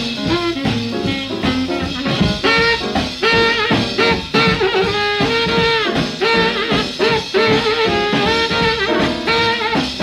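Jazz instrumental played back from a 1947 78 rpm record: a small swing combo of alto saxophone, piano, bass and drums, with the saxophone playing sustained, repeated lead notes.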